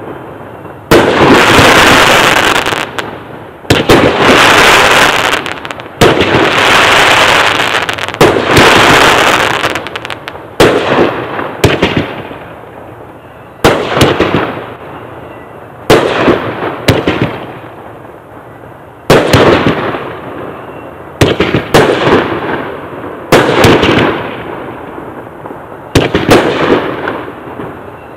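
A 16-shot finale rack firework going off: a string of launch thumps and aerial bursts, each with a fading tail. The first ten seconds or so are a dense, near-continuous run of shots, and after that single shots come about every second or two.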